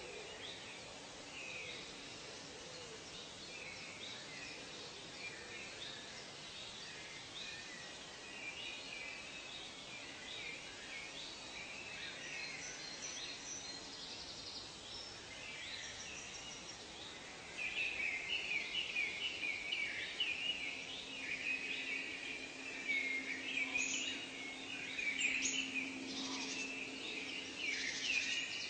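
Birds chirping and calling in a steady chorus of short, repeated chirps, which grow busier and louder about two-thirds of the way through. A faint, low, steady tone sits under them near the end.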